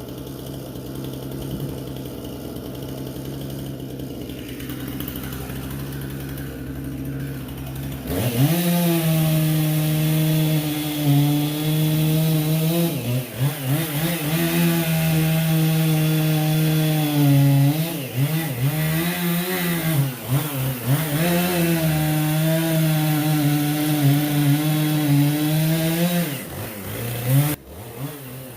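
Chainsaw idling, then about eight seconds in throttled up to full speed. It holds a high steady pitch that sags and recovers several times as it cuts firewood, and drops back near the end.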